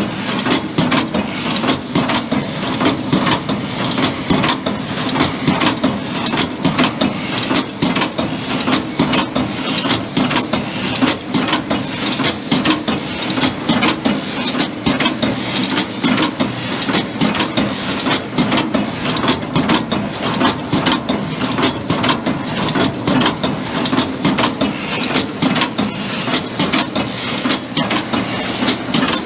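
Chain-making machine running: a loud, continuous clatter of rapid clicks and knocks over a steady mechanical hum.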